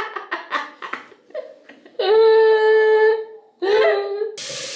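A girl laughing: quick giggling bursts, then a long held vocal 'aah' and a shorter one. A steady hiss begins near the end.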